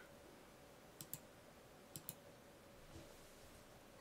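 Computer mouse clicking faintly: two quick pairs of clicks about a second apart, over quiet room tone.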